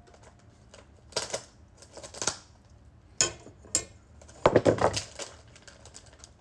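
A plastic fish bag crinkling and knocking against a glass bowl as its water is tipped out, in a few short bursts, the loudest about four and a half seconds in.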